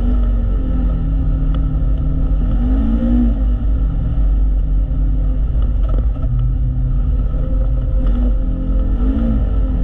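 Side-by-side UTV engine running with a steady low rumble while driving a dirt trail, its pitch briefly rising and falling twice, about three seconds in and again near the end.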